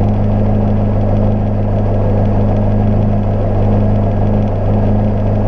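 Cozy Mk IV canard pusher's engine and propeller running at a steady, even drone, heard from inside the closed cockpit.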